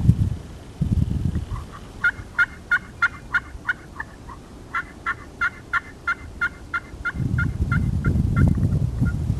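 Turkey yelping: a run of evenly spaced, clear yelps about three a second, a short run and then, after a brief pause, a longer one that fades toward the end. A low rumbling noise comes and goes near the start and again in the last two seconds.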